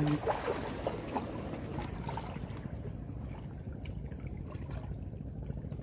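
Seawater lapping and washing against concrete breakwater blocks, a steady low wash, with a few faint clicks in the first two seconds.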